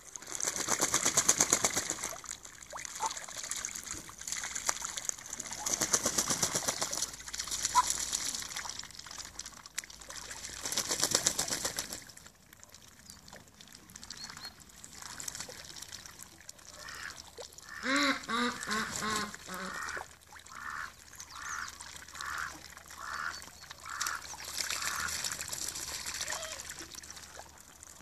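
Muscovy ducks dabbling in a shallow puddle: bursts of rapid bill-chattering and splashing in the water. About halfway through, a duck quacks in a quick run of calls, followed by more short bursts of dabbling and calls.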